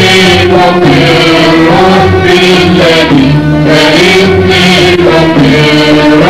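Arabic devotional song: a male voice singing long held notes over instrumental accompaniment.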